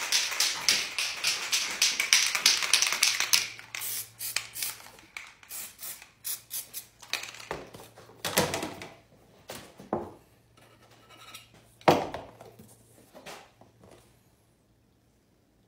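A spray-paint can being shaken, its mixing ball rattling in fast, even clicks for about the first three seconds. After that come a few scattered taps and two short swishes, about eight and twelve seconds in, as the painting is handled.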